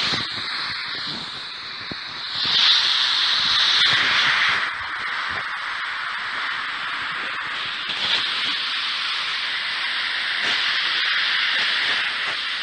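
Ghost-radio static: a steady hiss that swells louder for about two seconds a few seconds in, with a faint thin whistle near the start and scattered clicks.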